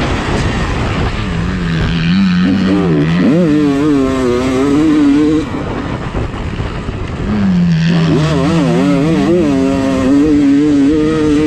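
Motocross dirt bike engine revving under hard riding, the pitch rising and falling as the throttle works. About five and a half seconds in the engine comes off the throttle and quietens, then it picks up again about two seconds later.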